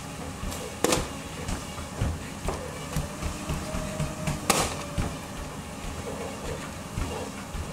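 A partly filled plastic water bottle being flipped and hitting a tile floor: a sharp knock about a second in and a louder one midway, with a few softer taps between, over a steady low rumble.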